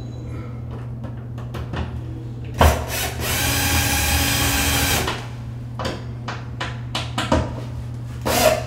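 Cordless drill driving a screw into a drywall anchor through a shelf bracket, running steadily for about two and a half seconds near the middle, then a few short clicks and knocks as the drill and bracket are handled.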